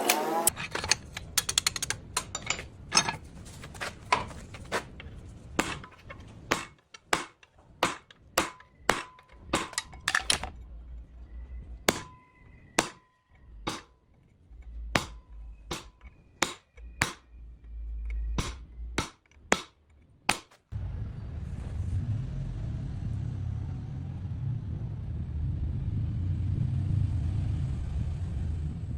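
Hammer blows on wrought iron being forged: a long run of sharp, irregular strikes, roughly one or two a second, some leaving a faint metallic ring. About twenty seconds in the strikes stop and a steady low rumble takes over.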